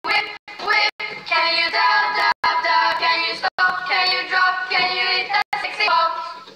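A sung pop track with backing music, played back by the phone's lip-sync app during recording. It cuts out suddenly for a moment several times.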